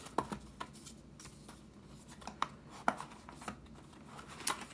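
Cardboard box and paper leaflets being handled: irregular light taps, clicks and rustles as the box's inner tray and folded paper manual are pulled out.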